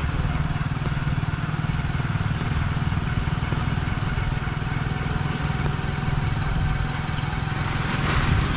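Engine of a vehicle in motion, running steadily with a low hum; the engine note rises slightly near the end.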